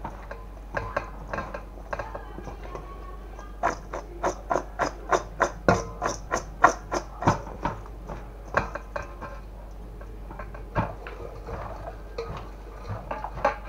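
Turmeric-coated eggplant pieces mixed by hand and then tossed in a stainless-steel bowl, the pieces and bowl clattering. A quick run of knocks, about three a second, comes a few seconds in and lasts about four seconds, with softer scattered knocks before and after.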